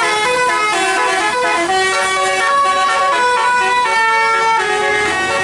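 Bus 'telolet' multi-note musical air horn playing a loud, quick tune, its notes stepping up and down every quarter to half second.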